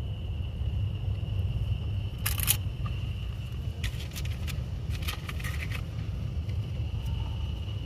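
Crickets trilling steadily over a low rumble, with a few short bursts of sharp clicks and rattles about two, four and five seconds in.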